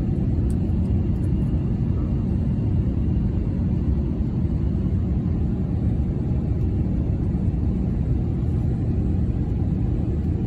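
Airliner cabin noise heard from a passenger seat: a steady low rumble of engines and airflow.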